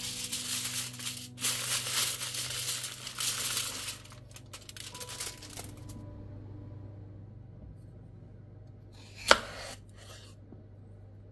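Aluminium foil being handled, crinkling and rustling loudly in bursts for about the first four seconds. After that it is quieter, with a single sharp knock about nine seconds in.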